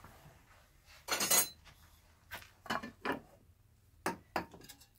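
Hard objects handled on a workshop bench: a short scraping clatter about a second in, then several sharp knocks and clicks as tools and the wooden duduk body are moved about.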